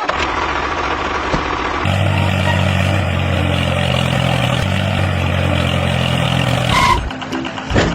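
A vehicle engine running steadily at idle: a low, even hum that starts about two seconds in and cuts off abruptly near the end.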